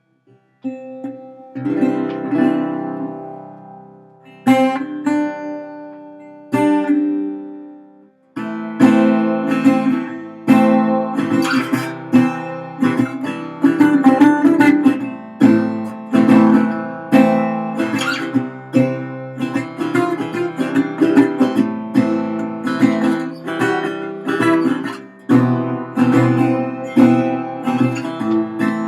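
Republic Resolian resonator guitar strummed. It opens with a few single chords left to ring, then from about eight seconds in settles into a steady, rhythmic strummed pattern.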